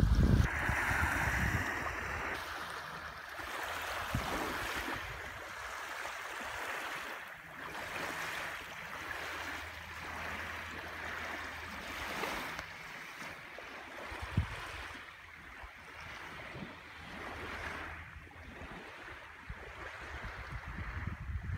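Small waves on Lake Michigan washing steadily on the shore. Wind buffets the microphone for the first couple of seconds, and a single short knock comes about two-thirds of the way through.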